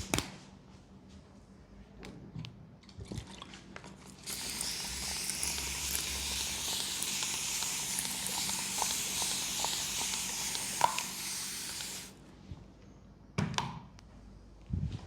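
A steady hiss, like a fine spray, starts about four seconds in and runs for about eight seconds, with faint clicks over it. Two short knocks follow near the end.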